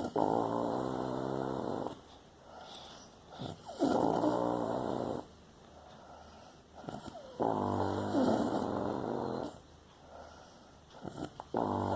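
Snoring: three long, loud rasping snores about every three and a half to four seconds, with quieter breaths between, and a fourth beginning near the end.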